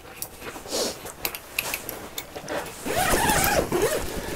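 Light clicks and rattles of hands working a small fish off a hook. About three seconds in comes a louder, wavering squeal that rises and falls in pitch for about a second.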